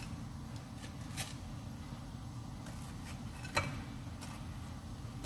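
Metal kitchen tongs clicking against a ceramic plate a few times as fried sandwiches are moved, the loudest click about three and a half seconds in, over a steady low hum.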